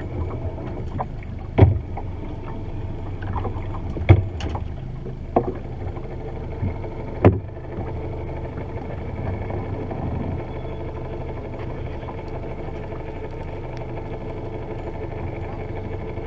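Boat sitting on open lake water with a steady low hum and water noise, and four sharp knocks on the boat about one and a half, four, five and a half and seven seconds in.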